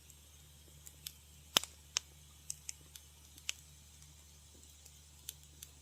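Wood fire crackling: irregular sharp pops and snaps, the loudest about a second and a half in, over a low steady hum.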